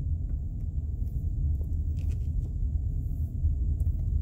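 Low, steady rumble of a car driving slowly: engine and road noise.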